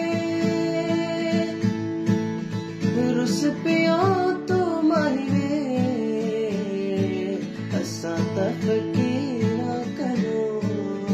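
Acoustic guitar strummed in a steady rhythm, with a young man's voice singing a melody over it from about three seconds in.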